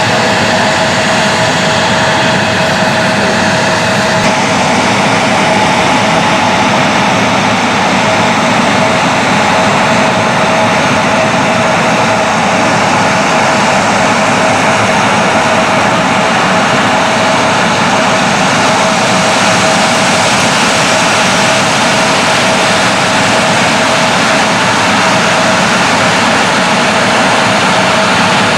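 Airliner engines running steadily: a loud, even rush with a steady whining tone held throughout.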